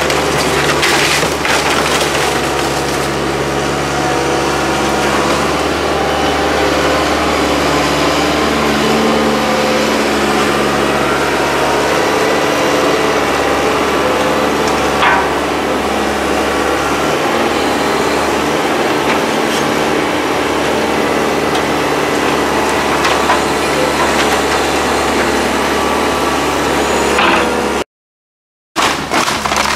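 A John Deere 110 excavator's diesel engine running steadily while its bucket tears and handles wooden demolition debris, the wood cracking and splintering. The sound cuts out briefly near the end.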